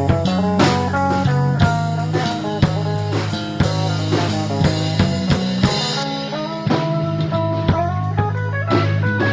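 Live rock band playing an instrumental passage: guitar picking out a melody of single notes over a steady drum beat, about two hits a second, and bass guitar.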